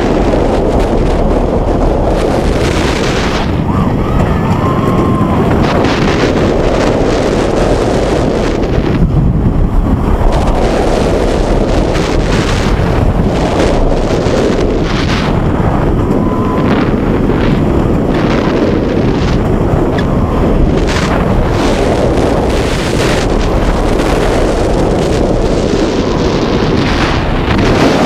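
Rushing wind buffeting the microphone as a Rocky Mountain Construction Topper Track coaster train (Lightning Rod) runs at speed. A continuous rumble runs under it, with rattling clicks from the wheels on the track.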